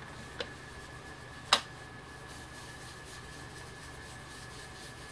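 Two clicks from handling a Distress ink pad and blending brush, a faint one and then a sharp one about one and a half seconds in. Under them runs a faint, steady high whine.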